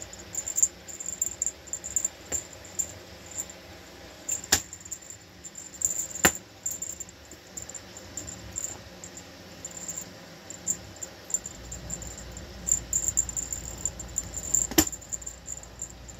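Irregular short, high tinkling ticks from a cat's wand toy being waved and batted, with a few sharper knocks.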